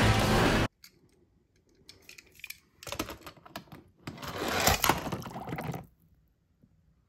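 A loud burst of film soundtrack cuts off suddenly under a second in. Then come light clicks and scrapes of a die-cast toy car being handled on a plastic track, with two longer noisy rushes about three and five seconds in.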